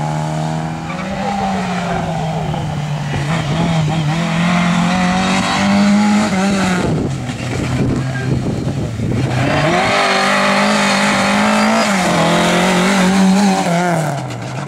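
Rally car engine running hard, its pitch climbing in steps through upshifts, dropping low with a rough, gritty stretch around the middle as the driver backs off, then climbing again and falling away near the end.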